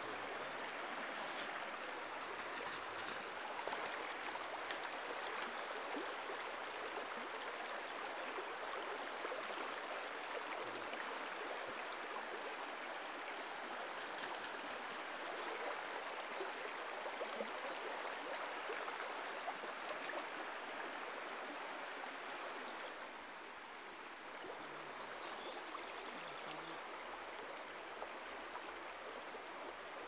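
Mountain river running fast over stones in shallow riffles: a steady rush of water, a little softer in the last quarter.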